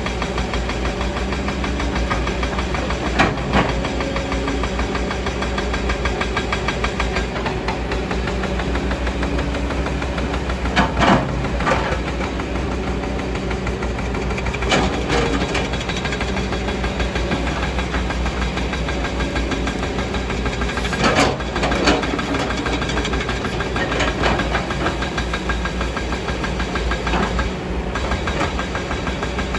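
Kobelco excavator's diesel engine running steadily, its pitch shifting as the hydraulics take load, with a few sharp knocks and clanks of the bucket working the hillside, the loudest about eleven and twenty-one seconds in.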